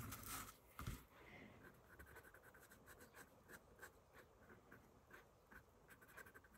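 Faint scratching of a black Sakura Micron PN pen drawing short strokes on a paper tile, a few quick strokes a second, with a light knock about a second in.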